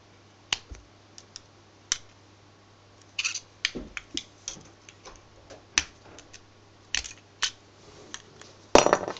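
Irregular small clicks and light knocks of the metal and plastic parts of a microwave-turntable synchronous motor being pried and handled apart by hand, with a louder short clatter near the end. A faint steady low hum sits underneath.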